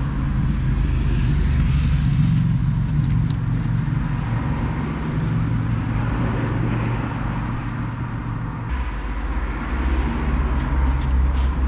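Engine running steadily with a low, even drone; its note changes about eight and a half seconds in. A few faint clicks come from small connectors and wire being handled.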